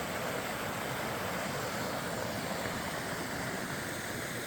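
Mountain creek rushing: a steady, even wash of running water.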